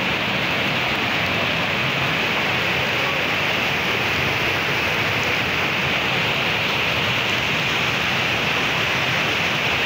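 Steady rushing noise of heavy rain together with muddy floodwater surging through a drainage channel.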